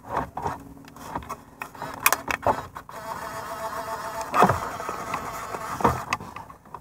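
Plastic clicks, knocks and scrapes as the factory Subaru head unit and six-disc CD changer stack is handled and tilted out of the dash, over a faint steady hum.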